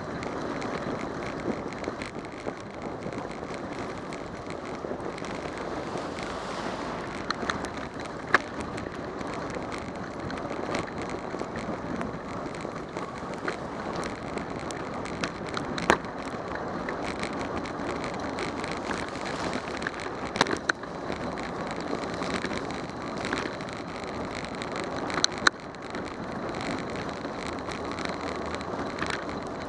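Steady rushing noise of a bicycle riding on a wet street: tyres on wet pavement and wind on the bike-mounted camera's microphone. Several sharp knocks break in at irregular moments.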